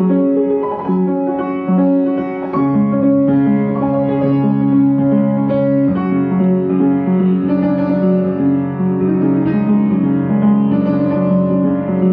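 Piano playing a slow, calm instrumental piece: a repeating figure of held mid-range notes, with a low sustained bass coming in about two and a half seconds in.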